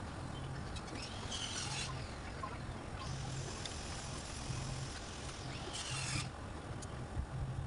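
Rattan cane strands rubbing and scraping as they are worked through a woven cane chair seat, with two short, louder scraping strokes, one early and one late, over a low steady hum.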